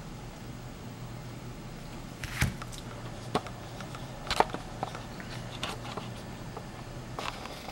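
Steady low hum with hiss, broken by about half a dozen small clicks and knocks from about two seconds in, the loudest near the middle.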